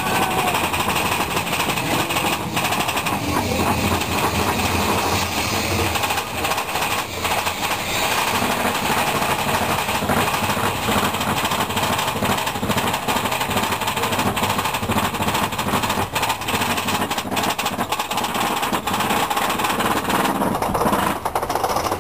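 Mine-train roller coaster climbing a chain lift hill: a fast, steady mechanical clatter of the lift chain and anti-rollback ratchet under the rumbling train. The clatter thins shortly before the end as the train crests.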